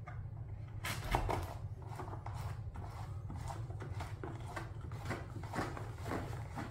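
A fin key turning a screw in a surfboard fin box: a run of irregular small clicks and scrapes, a few a second, starting about a second in, over a steady low hum.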